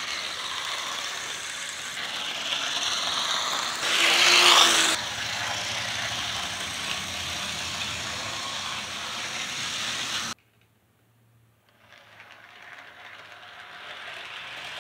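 HO scale model locomotive running along the track, its motor and wheels making a steady whirring noise that is loudest as the train passes close about four seconds in. The sound cuts off suddenly a little after ten seconds, and another locomotive's running sound fades back up soon after.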